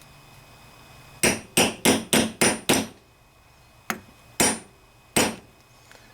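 A hammer tapping a new brass fuel inlet connector into a Briggs and Stratton carburetor body: six quick sharp strikes, about three a second, then a light tap and two more spaced strikes.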